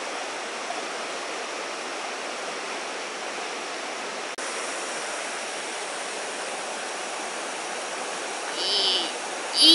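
Steady, even rushing noise like running water. Near the end comes a short, high, voice-like squeal.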